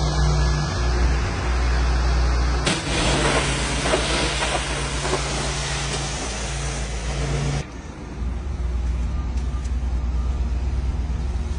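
Pressure washer spray hissing against a semi-truck cab over a steady engine hum. The hiss grows louder a few seconds in, then stops abruptly about two-thirds of the way through, leaving the hum.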